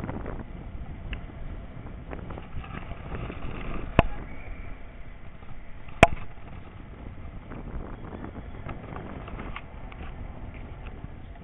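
Wind rumbling on the microphone, with two sharp knocks about two seconds apart.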